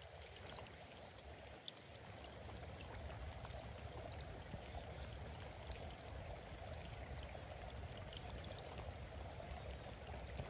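Steady rushing of running water, with a few faint scattered ticks.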